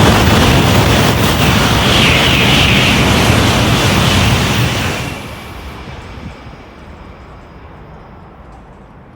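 Shinkansen bullet train passing through the station at high speed without stopping: a loud rush of wheel, track and air noise that cuts off sharply about five seconds in as the tail of the train goes by, leaving a fading rumble.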